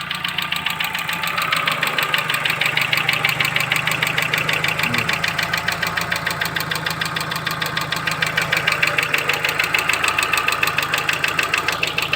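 Chevrolet Cruze engine idling with a fast, regular knock from the top end that fresh oil and a flush have not cured; the owner suspects the hydraulic valve lifters.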